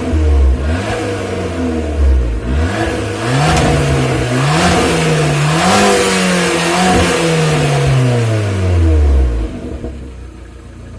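Abarth 595's 1.4-litre turbocharged four-cylinder engine, through its stock exhaust, rising and falling in revs several times. About nine seconds in, the revs drop away and the sound falls quieter.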